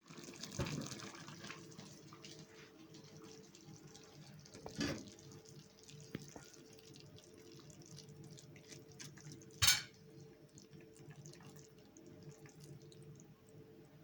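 Faint running or trickling water with scattered small clicks and two knocks, the louder about ten seconds in, over a low steady hum.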